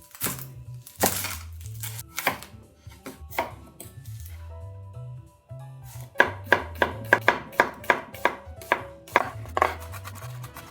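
Kitchen knife chopping on a cutting board: a few single chops, then a quick run of about four chops a second for several seconds, over background music.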